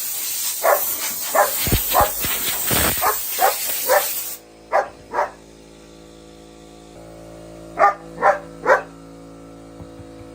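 German shepherd barking in short repeated barks over a loud hiss of air from an air compressor. The hiss cuts off suddenly about four seconds in, and the dog keeps barking in short bursts over a steady machine hum.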